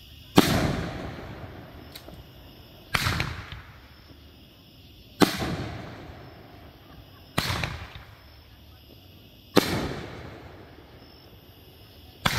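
Kripton Fireworks 'King of the Jungle' 2-inch, 500-gram firework cake firing shells one at a time. Six sharp bangs come about every two seconds, each trailing off in a fading echo.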